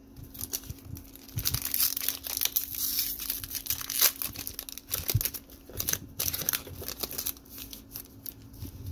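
Foil wrapper of a trading card pack crinkling and tearing as it is opened by hand: a run of crackles, loudest about four seconds in.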